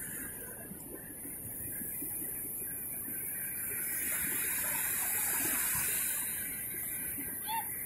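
Small waves breaking and washing up on a sandy shore, swelling about halfway through, with one short high chirp near the end.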